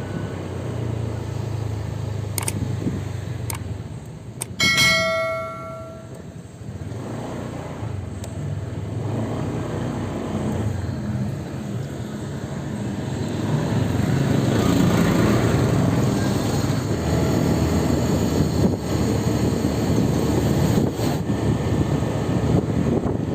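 Street traffic noise from passing vehicles, with a single metallic, bell-like ring about five seconds in that dies away over about a second. The traffic gets louder from about halfway through.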